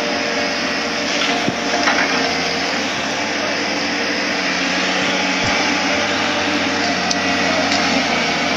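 Tracked excavator's diesel engine running steadily, a hum of several held tones over a steady rush, with a few faint knocks.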